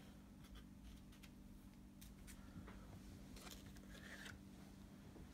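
Near silence over a steady low hum, with a few faint rustles and soft clicks of trading cards and plastic card holders being handled.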